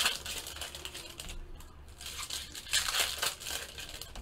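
Foil wrappers of baseball card packs being torn open and crinkled by hand, in irregular bursts, loudest about two to three seconds in.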